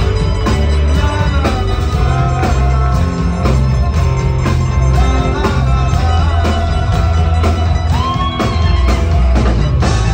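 Live band playing loud rock-style music with electric guitar, heavy bass and drums keeping a steady beat, while a male vocalist sings into a microphone.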